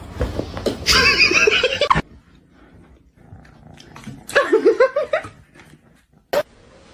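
A cat vocalizing in two loud stretches of pitched calls, the first cut off abruptly about two seconds in, the second rising and falling in pitch around the middle; a single sharp click near the end.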